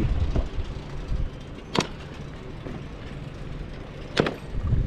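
Steady low rumble of wind and road noise while riding across a bridge, with two sharp clicks, about two seconds and four seconds in.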